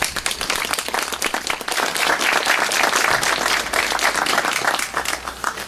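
A small crowd applauding with hand claps, swelling after the first couple of seconds and dying away near the end.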